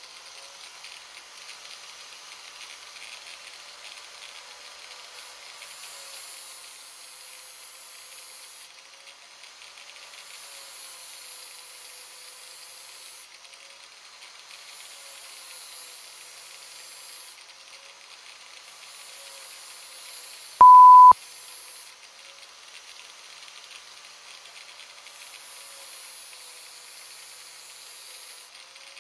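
Black & Decker angle grinder grinding the edge of a steel lawnmower blade in a sharpening jig, heard as a thin, hissing rasp that comes and goes in passes a few seconds long as the blade is drawn across the disc. About 21 seconds in, one loud, high, steady beep tone cuts in for about half a second.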